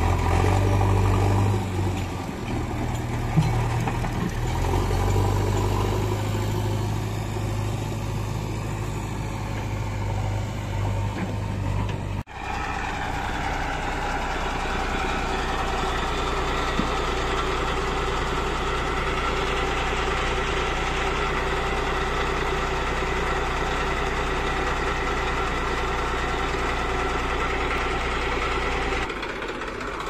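JCB 3DX backhoe loader's diesel engine running under load as its front loader bucket is raised. After a cut about twelve seconds in, a Massey Ferguson tractor's diesel engine runs steadily with an even hum.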